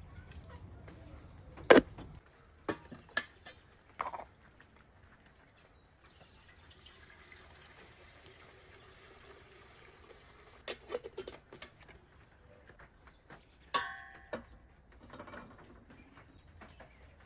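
A run of kitchen handling sounds: a few sharp clinks early on, then water running into a metal kettle, more small clicks, and near the end a metallic clank that rings briefly.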